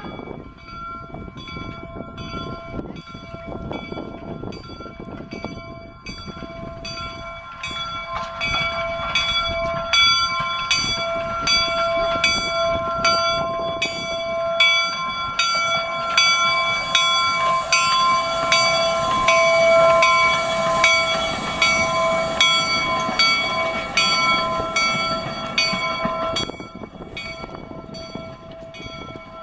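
Replica steam locomotive's bell ringing steadily, about two strokes a second, over the rumble of the moving engine. From about halfway through, a high steam hiss joins in for about ten seconds.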